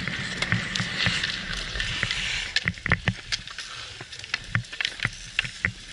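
Hockey skate blades scraping and carving on outdoor ice, a loud steady hiss for about the first two and a half seconds. After that the hiss drops away and leaves a run of sharp, irregular clicks and knocks of sticks and puck on the ice.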